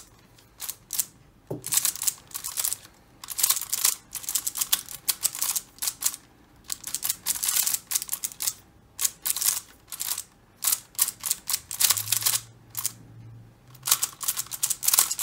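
Xiaomi Giiker i3 magnetic smart cube being turned fast in a speedsolve. Its layers click and clack in quick runs, broken by short pauses.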